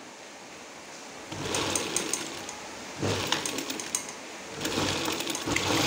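Brother 814 buttonhole sewing machine stitching a buttonhole in three short bursts of running, each a second or so long with brief pauses between, as the pedal is pressed and released. It is a test stitch after adjusting the top-and-bottom bartack.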